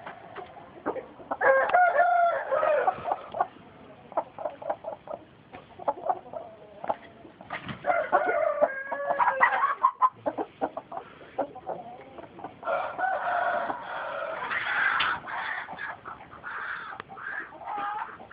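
Chickens: a rooster crowing about three times, with short clucks in between.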